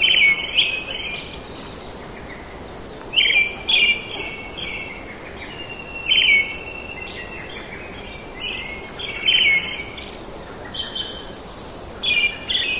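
Birds calling in short, repeated chirping phrases, a burst every second or so, over a steady outdoor background hiss.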